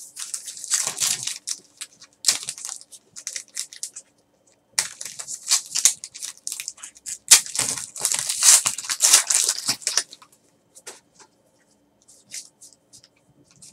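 Foil trading-card pack wrappers being torn open and crinkled by hand, in crackling bursts through most of the first ten seconds. After that come only a few light clicks as the cards are handled.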